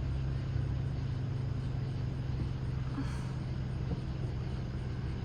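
Steady low hum of a car engine idling.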